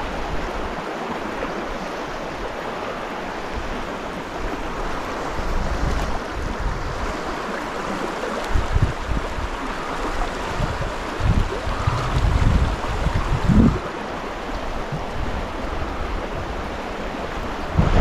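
River current rushing steadily over a shallow rocky bed. Low rumbles of wind on the microphone come and go over the middle of the stretch.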